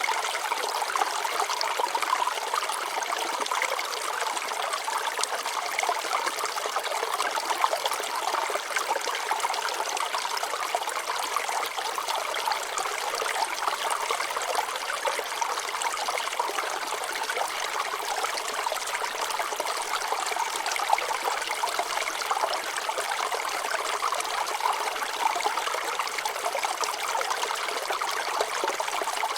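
Shallow water flowing and trickling over rocks, a steady bubbling with no low rumble.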